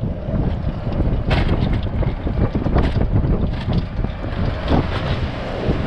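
A moving golf cart: wind buffeting the cart-mounted microphone over the rumble of the cart rolling, with a few sharp rattles.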